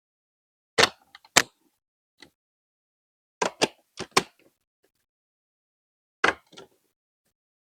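Plastic Lego Duplo bricks clicking and knocking as they are handled and set in place: sharp clicks in four short groups of one to three, with silence between.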